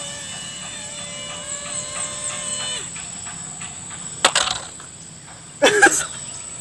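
Small electric motor and propeller of a foam RC plane running with a steady whine that wavers a little in pitch, cutting off abruptly about three seconds in. Then come two short scraping knocks as the plane comes down on hard dirt, the second one louder, near the end.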